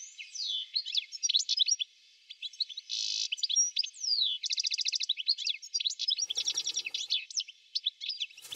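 Several wild birds singing and calling together: a busy mix of quick chirps, fast even trills and sweeping whistles, briefly joined by a lower, buzzy sound about six seconds in.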